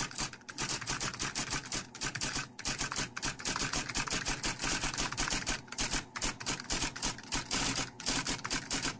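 Sound effect of typewriter keys clacking in a rapid, steady run of strikes.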